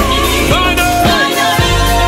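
Gospel praise music from a band of drums, bass guitar and keyboards, with singers' voices sliding over held chords.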